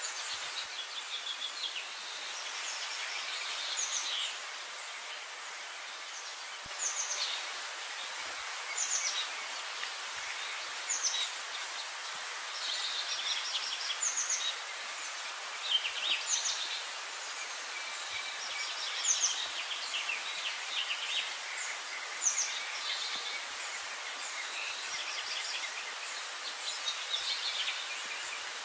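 Sparrows chirping, short calls and quick falling notes repeated every second or two, over a steady outdoor hiss.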